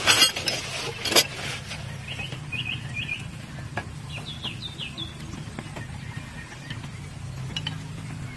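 A few knocks and rustles in the first second, then small birds chirping in short bursts of three or four quick notes, twice, over a steady low background rumble.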